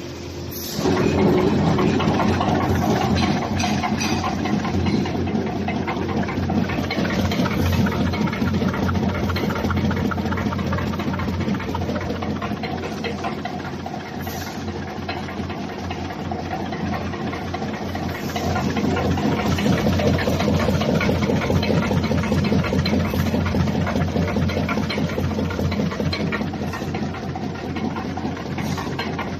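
Wire basket and mesh making machine running, a steady mechanical hum with a fast, dense clatter. It comes in sharply about a second in and eases somewhat in the middle before rising again.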